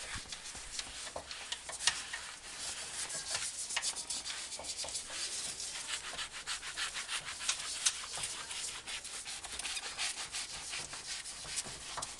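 Hand-held scrub pad rubbed quickly back and forth over a leather car seat to clean it, a continuous scratchy scrubbing made of many short strokes.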